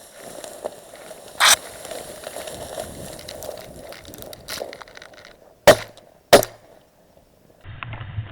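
Two loud shotgun shots about two-thirds of a second apart, a quick double, with a fainter sharp crack about a second and a half in.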